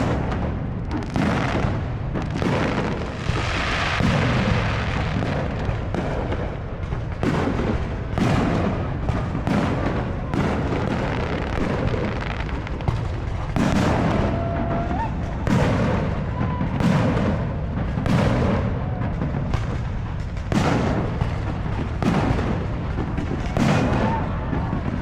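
Fireworks going off in a steady barrage: a long string of booms about one every second or two, each ringing out into the next.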